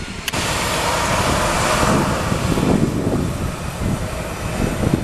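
Airbus A319 twin jet engines running loud: a broad, even roar with rumble underneath, jumping up suddenly just after the start and swelling about two seconds in.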